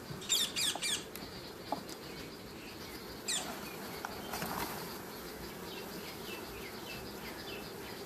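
Honey bees buzzing in a steady hum from the open hive as a frame is lifted out, with a couple of light clicks. Birds call over it: a burst of sharp calls in the first second, one sweeping call about three seconds in, and a run of short falling chirps later on.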